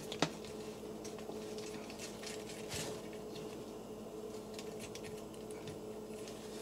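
Faint clicks and taps of a plastic Transformers figure being handled, with one sharper click about a quarter second in, over a steady low hum.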